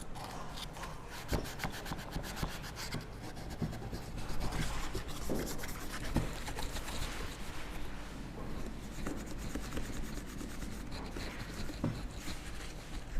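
Continuous hand rubbing and scrubbing on a headlight part being cleaned, with many small scraping clicks.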